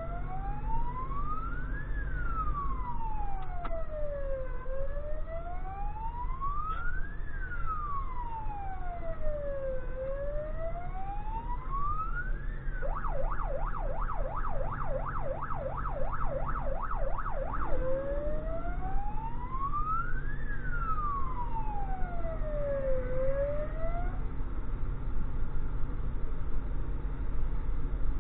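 Electronic siren of an emergency truck, heard from inside its cab, sounding a slow wail that rises and falls about every five seconds. About halfway through it switches for roughly five seconds to a fast yelp, then returns to the wail and stops a few seconds before the end. The truck's engine rumbles underneath.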